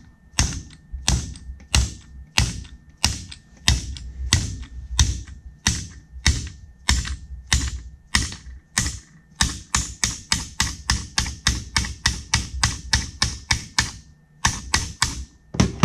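Hammer tapping a stuck wrist pin out of a Yamaha 760 jet ski piston, in a steady run of sharp metallic knocks. They come about two or three a second at first and quicken to about four a second in the second half, with a short break near the end. The pin is held fast, which the speakers put down to the engine running lean and overheating.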